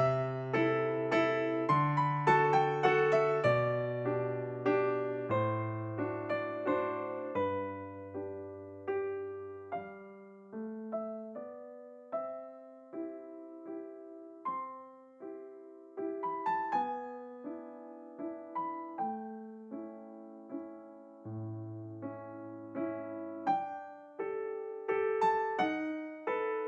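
Background solo piano music: a light, classical-style piece of struck notes and chords, busier at the start and near the end and sparser in the middle.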